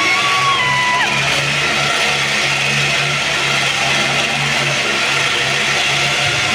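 Motorcycle engines running steadily as the bikes circle inside a steel-mesh globe of death, under loud rock music with electric guitar.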